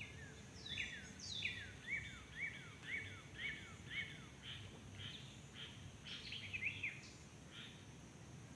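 A songbird singing: a run of short, downward-sliding whistled notes, about two a second, followed by looser calls, over a faint steady outdoor hum.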